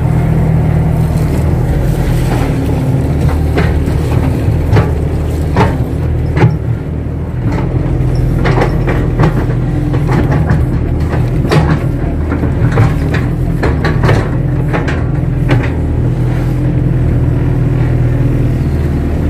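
KATO HD512E hydraulic excavator's diesel engine running steadily under working load, with irregular knocks and clunks as the machine digs and moves soil.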